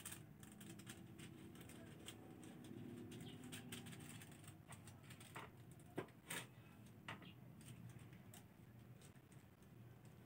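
Quiet scattered clicks and clinks of metal tongs and knives being handled on a wooden cutting board, loudest about six seconds in, over a faint low background hum.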